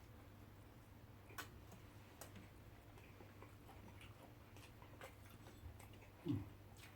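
Near silence over a steady low hum, broken by a few faint scattered clicks. A short, low sound falls in pitch near the end.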